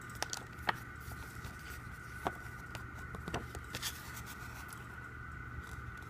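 Glossy paper photo insert being handled and unfolded: a few light clicks and rustles of the paper in the first four seconds, then little more, over a steady background hum.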